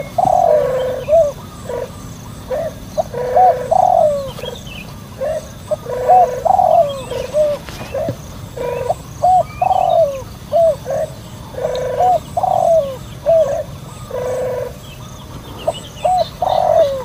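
Dove cooing, a steady run of repeated low coos, with faint chirps of small birds above it.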